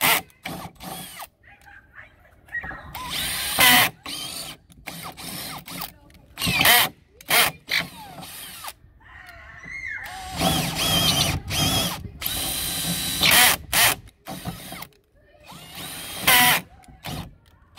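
Cordless drill boring into a door's metal lever-handle plate in repeated short bursts, the motor whining up each time it is squeezed. The longest run comes about two-thirds of the way through, and a last short burst comes near the end.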